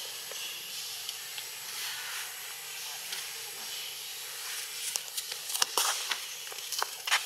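Steady high outdoor hiss, with a cluster of sharp clicks and knocks about five to seven seconds in.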